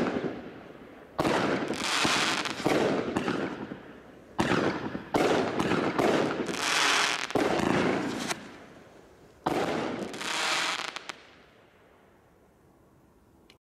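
Final shots of a 37-shot firework barrage cake: several sharp bangs spaced irregularly, each followed by a long crackling hiss as the star bursts break. The last burst fades out, leaving a faint tail and one small pop near the end.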